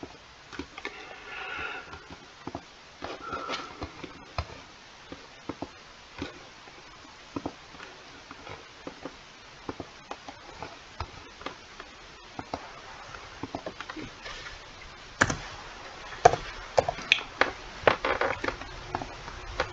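Computer mouse clicks scattered throughout as menus and a dialog are worked, then a quick run of keyboard keystrokes near the end as a value is typed in.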